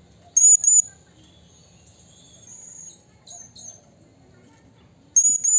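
Blue-crowned hanging parrot (serindit) calling with shrill, high-pitched notes: two sharp loud notes about half a second in, softer chattering in the middle, and a quick burst of three or four loud notes near the end.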